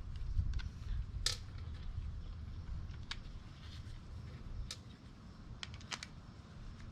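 A few light, separate clicks and taps as the plastic float bowl of a Briggs & Stratton carburetor is fitted back onto the carburetor body by hand, over a low rumble.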